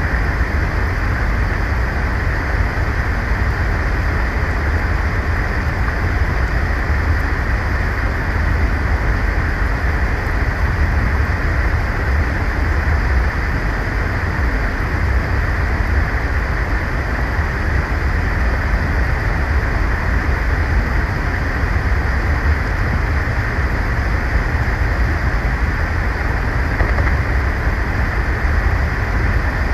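Steady wind noise on an outdoor camera microphone during a snowstorm: an unbroken low rumble under a rushing hiss, with no bird calls standing out.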